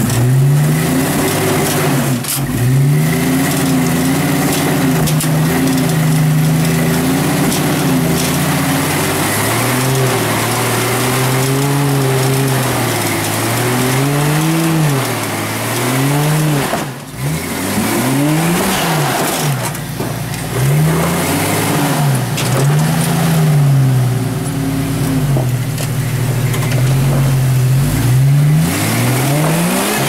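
Rock buggy's engine revving up and dropping back again and again as it crawls up a boulder ledge, the throttle blipped every second or two, with a brief lull a little past halfway.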